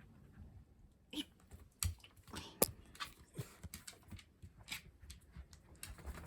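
Two pets sneezing after having their teeth brushed: a scattered series of short, sharp sneezes and small clicks, the loudest about two and a half seconds in.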